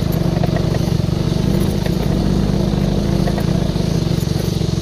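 Motorcycle engine running steadily as the bike is ridden along a dirt trail, with an even, rapid exhaust pulse.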